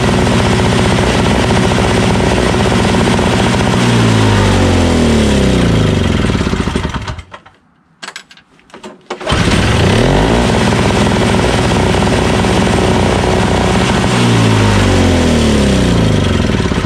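Tecumseh 5 hp single-cylinder engine of a Craftsman single-stage snowblower running, its speed rising and falling; it cuts out about seven seconds in, runs again about two seconds later, and stops near the end. The auger turns with it as soon as it runs, because the auger drive is engaging on its own and loading the crankshaft.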